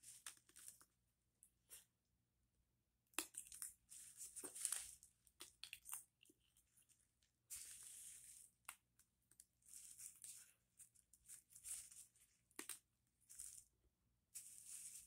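Faint close-up mouth sounds of licking and sucking whipped cream off a cucumber: irregular wet clicks and short crackly slurps, with a longer slurp about halfway through.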